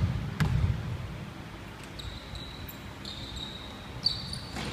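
A basketball bounced twice on a hardwood gym floor in a free-throw routine, each bounce a sharp thud. Short high squeaks follow, typical of sneakers on the wooden floor, and a single knock comes near the end.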